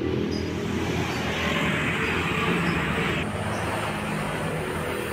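Honda Astrea Grand's rebuilt 115cc four-stroke single-cylinder engine running steadily after being restored, with a hiss joining for about two seconds midway.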